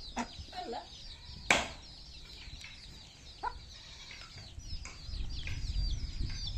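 A brood of chicks peeping constantly in short, high, falling chirps, with a hen giving a few lower clucks among them. A sharp click about a second and a half in, and a low rumble near the end.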